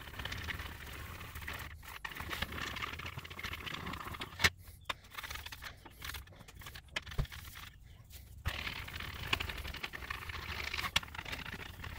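A polishing pad scrubbing abrasive polish over a plastic wood-grain shifter bezel: scraping rubbing strokes that come and go with short pauses, and a single sharp tap about four and a half seconds in.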